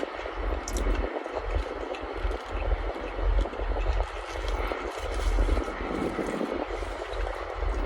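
Wind buffeting the microphone in gusts, a deep rumble that drops out briefly several times, over a steady background hiss.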